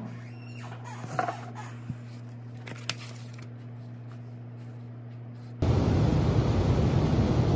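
Pencil scratching on a workbook page, with a few light ticks, over a low steady hum. About five and a half seconds in, this gives way abruptly to a loud, steady hiss of steam jetting out during a steam test.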